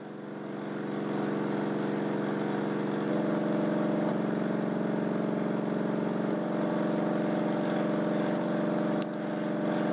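Crossfire C3 12-inch subwoofer in a sealed box playing a low bass test tone of about 46 Hz, heard as a steady loud drone with buzzing overtones. The tone fades in over the first second and grows a little fuller about three seconds in.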